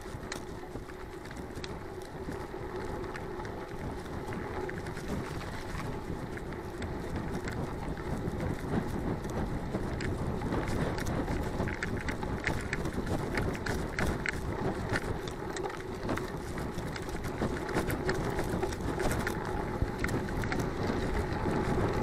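Mountain bike riding fast along a dirt and gravel track: tyre noise and wind on the handlebar-mounted camera, growing louder as the bike speeds up, with scattered clicks and rattles from the bike over the rough surface.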